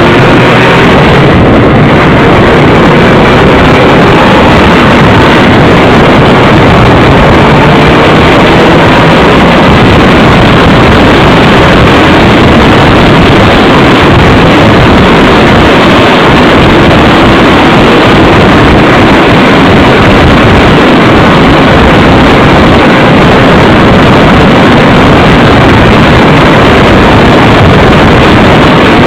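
Motorcycle riding at speed, heard from a bike-mounted camera: loud, steady wind rush over the microphone with the engine running underneath.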